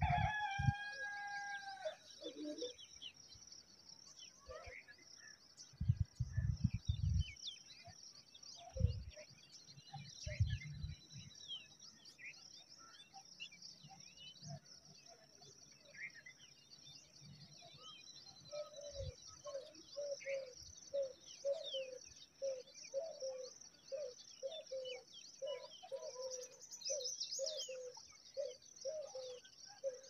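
Outdoor bird chorus: a long pitched call that falls away in the first two seconds, constant high chirping from small birds, and, from about eighteen seconds in, a steady series of short low notes, about two a second. A few dull low thumps come between about six and eleven seconds.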